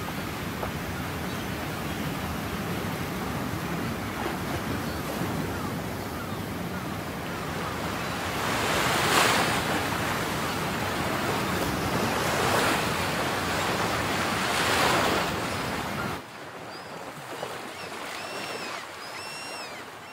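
Wind-driven lake waves washing and breaking against the shore and a wooden pier, with wind, rising in three louder surges about halfway through. About four seconds before the end it drops suddenly to a quieter background with a few short, arching gull calls.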